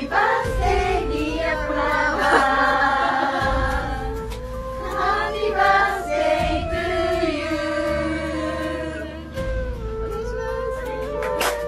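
Background music with sung voices: a choir-like vocal line held and gliding over a low bass that drops out briefly a few times.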